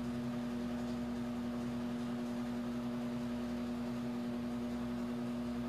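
Steady electrical hum, one low tone with a few fainter higher ones, over a light hiss of room noise.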